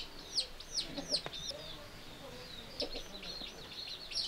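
Chickens in the yard: a string of short, high, falling peeps, thickest in the first second and again near the end, with a few faint lower clucks.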